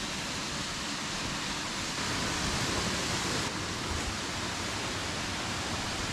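Waterfall rushing with a steady, even roar of falling water.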